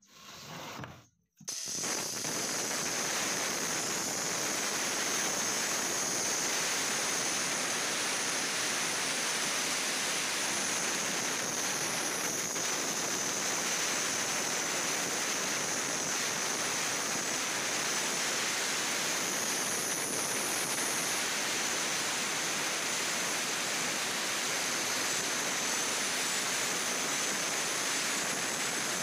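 Handheld electric cutter machine with a circular blade running and sawing lengthwise into a hardwood door-frame beam to cut its rebate: a steady hiss of cutting with a constant high motor whine. It starts about a second and a half in and holds even throughout.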